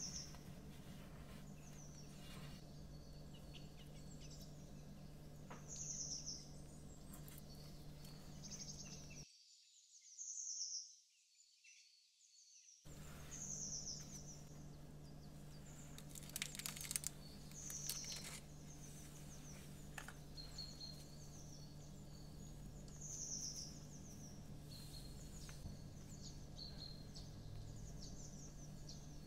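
Recorded ambience of winter birds in the morning: short high chirps repeated every few seconds over a steady low hum. The sound cuts out for a few seconds about a third of the way in.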